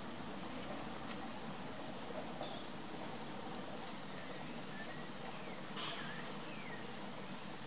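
Steady outdoor background hiss with a few faint, short falling chirps from small birds scattered through, and a soft tap about six seconds in.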